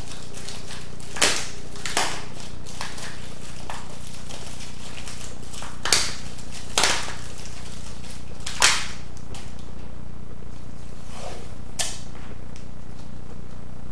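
Aluminium foil crinkling in short, sharp crackles, about six times, as it is squeezed and shaped by hand, over a steady low hum.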